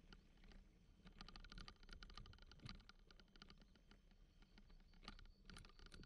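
Faint, rapid, irregular clicking and rattling from a bicycle riding over a bumpy dirt track, thickest about a second in and again near the end.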